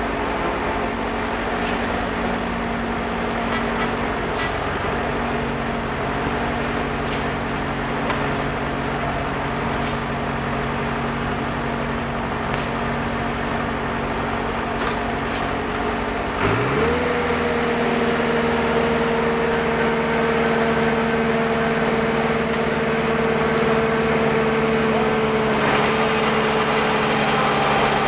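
Engine of a caisson core-drilling rig running steadily, then revving up quickly about two-thirds of the way through and holding at the higher speed.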